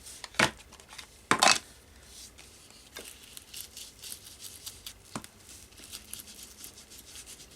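A few sharp clicks and knocks as a Distress Ink pad in its plastic case is opened and handled, the loudest about a second and a half in, then light, quick scratchy rubbing as the ink is worked onto a paper card.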